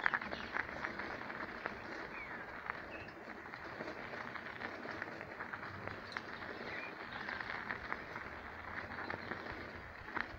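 Footsteps on a dry dirt-and-gravel trail, a steady run of small crunches and ticks, with a few short bird chirps.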